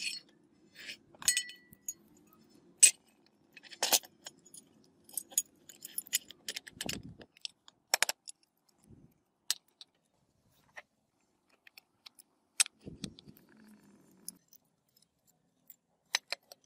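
Metal parts of an electric drill's motor clinking and knocking as the field coil stator is handled and fitted into its housing: an irregular scatter of sharp clicks and taps.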